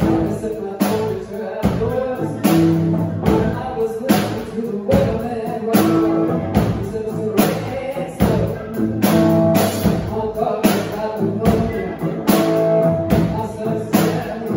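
Live blues-rock band playing: electric guitar, bass guitar, drum kit and keyboard over a steady beat of about two drum hits a second, with a woman singing.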